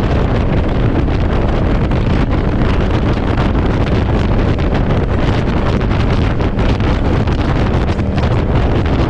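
Loud, steady wind buffeting the microphone on a moving motorcycle in strong gusty wind, drowning out the engine.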